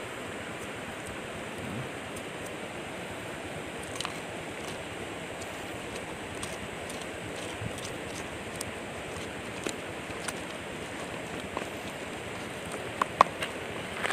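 Steady rush of flowing river water, with a few short knocks of a pestle in a clay mortar as chili paste is ground, a couple of them near the end.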